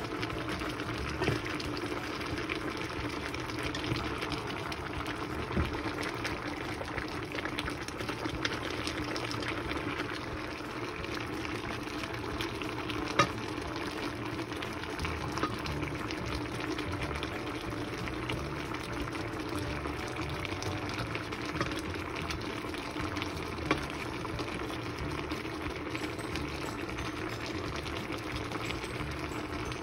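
Pot of mackerel and radish braise simmering, a steady bubbling, with a few sharp clicks of metal tongs against the pot, the loudest about halfway through.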